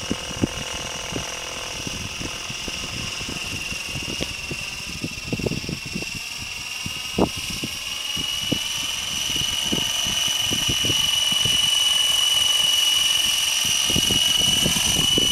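Gaui Hurricane 550 electric RC helicopter in flight: a steady high motor-and-rotor whine that grows louder and slightly higher in pitch from about halfway through. Irregular low thumps run underneath it.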